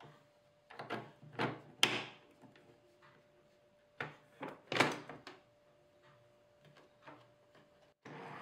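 Two short bursts of knocks and sliding scrapes from objects being handled, one about a second in and one about four seconds in, with a faint steady hum underneath.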